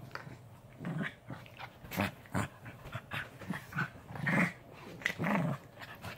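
Two puppies play-fighting, growling in short, irregular bursts about every half second to second.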